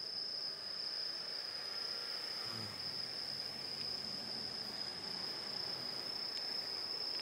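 Crickets trilling in a steady, unbroken high-pitched tone.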